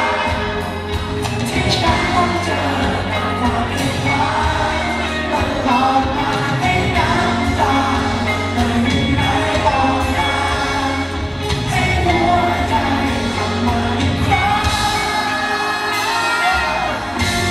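Live band playing a pop-rock song with a lead vocal singing the melody, amplified through a concert PA.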